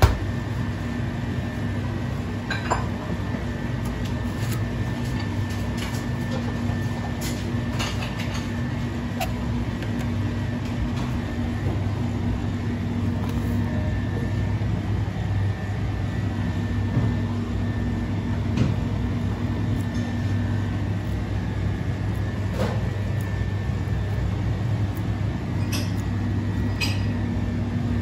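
Steady low mechanical hum of commercial kitchen machinery, with a faint steady high whine above it. A few light clicks and clinks are scattered through it.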